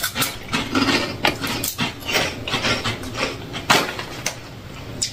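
Several people crunching and chewing puffed snacks, a run of short crackly crunches, with a foil snack bag crinkling as it is handled near the end.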